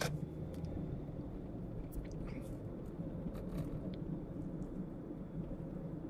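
Steady low rumble of a car being driven, engine and road noise heard from inside the cabin, with a few faint clicks.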